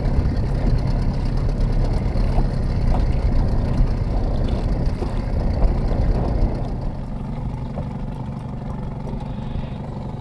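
A boat's motor running steadily, which gets somewhat quieter about six and a half seconds in.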